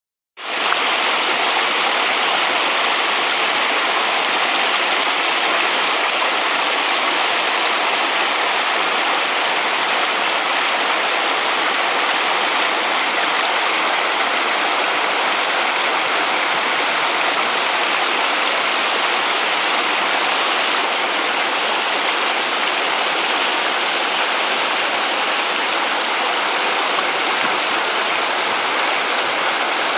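Shallow rocky stream rushing and splashing over boulders: a steady, loud wash of water that fades in at the very start.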